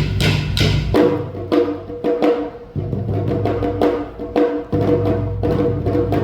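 Awa Odori hayashi band playing: drums and metal percussion keep a steady beat of about two or three strokes a second. About a second in, a held melody line enters over the beat.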